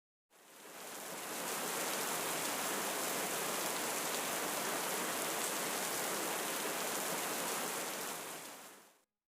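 A steady, even rushing hiss of noise, like a rain or running-water sound effect, fades in over about a second, holds, and fades out near the end.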